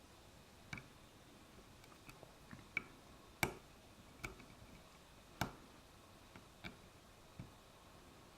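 Pick working the pins of a 7-pin ASSA oval lock cylinder under tension: faint, irregular small metallic clicks, about nine of them, with two louder ones a little past the middle, as pins are pushed up and set.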